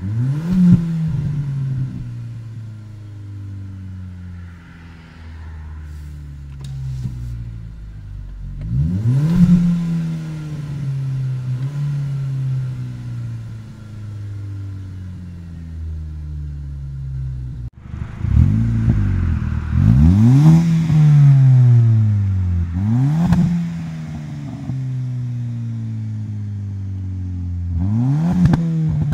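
Car engine idling and being blipped up in quick revs several times, each falling back to a steady idle, with three revs close together about two-thirds of the way through.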